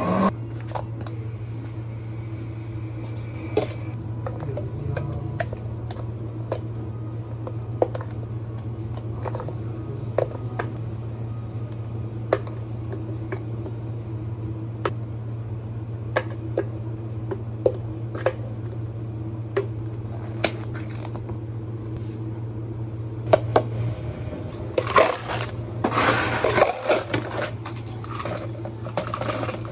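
A steady low hum with scattered light clicks and taps as plastic cups and utensils are handled, then, about five seconds from the end, a louder clatter of ice cubes being scooped into tall plastic cups.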